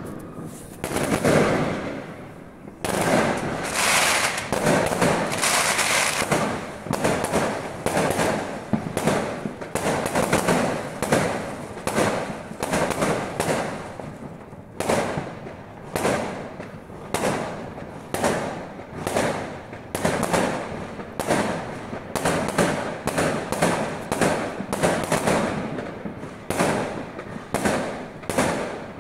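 Aerial fireworks going off, heard from inside a house: a dense run of bangs and crackling for the first half, then a steady string of sharp bangs in quick succession.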